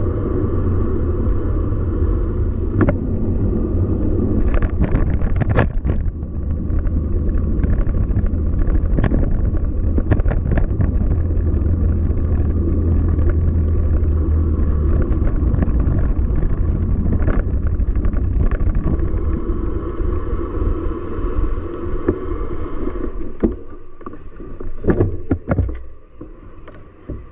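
Steady low rumble of wind and road noise while riding a bicycle, with scattered sharp clicks and rattles. The rumble eases off near the end as the bike slows.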